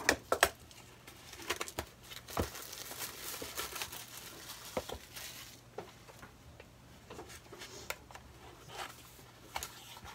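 Cardboard and plastic packaging being handled and unpacked: scattered sharp taps and clicks, the loudest right at the start, with a longer stretch of rustling and crinkling a few seconds in.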